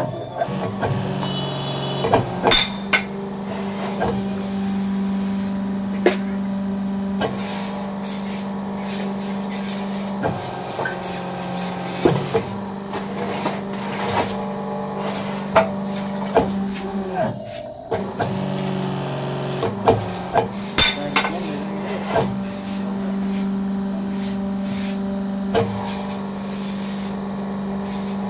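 Electric motor of a fly ash brick-making machine's hydraulic unit running with a steady hum that dips briefly about two-thirds of the way through. Irregular sharp knocks of a hand tool striking the machine's steel frame and mould come over it.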